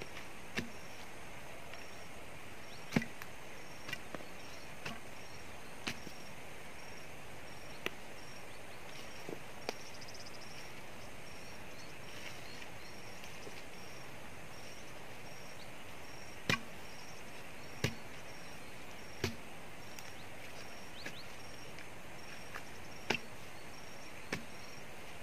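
A hand tool chopping into a tree stump and its roots: about a dozen sharp, single blows at uneven intervals, with a long pause in the middle.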